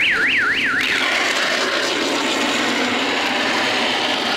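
An electronic siren whoops, rising in pitch four times in quick succession, then gives way about a second in to a steady loud rushing noise.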